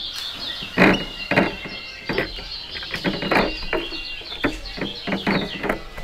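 White-eye (kecial) song: rapid high chirping and trilling with a held high note, mixed with frequent short knocks and flutters as the caged bird hops between perches.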